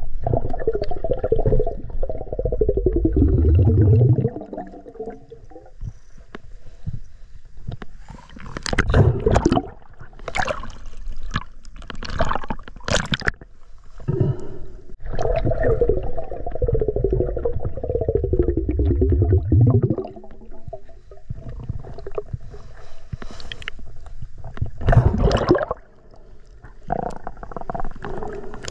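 Muffled water noise picked up by a camera held underwater: gurgling and sloshing, with two long swells of low rumble and several sharp splashes in between.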